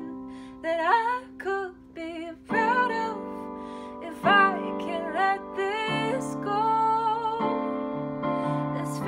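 A woman singing a slow ballad with vibrato over sustained piano chords, a new chord struck every second or two.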